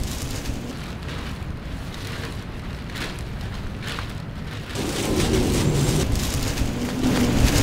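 Dense, crackling noise like heavy rain or static, starting abruptly, growing louder about five seconds in, then cutting off suddenly.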